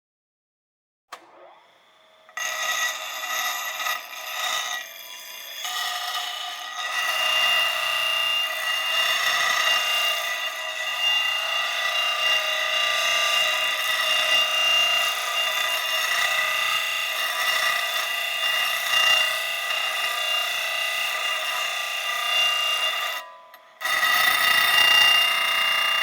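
Power grinder running and grinding. There is a click about a second in, then from about two seconds in a steady high whine with harsh grinding noise. It cuts out briefly near the end and starts again.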